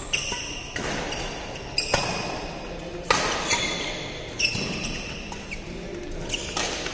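Badminton rackets striking a shuttlecock in a doubles rally, sharp strikes roughly every second, echoing in a large hall. Brief squeaks of court shoes on the synthetic floor are heard between some of the strikes.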